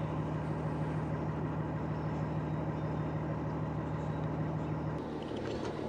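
DAF 1160 six-cylinder diesel idling steadily at its dry exhaust outlet, a low even hum just after a cold start.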